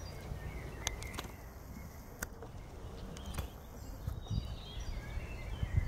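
Sheep grazing in long grass, with a few sharp clicks. Small birds chirp in the background, more often in the second half.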